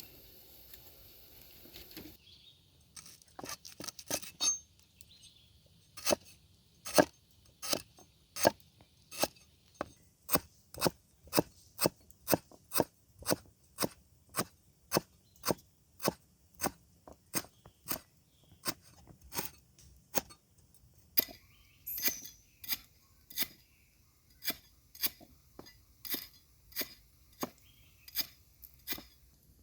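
Faint frying sizzle for about two seconds, then a long run of evenly spaced sharp knocks, about one and a half a second, from a kitchen utensil striking during food preparation.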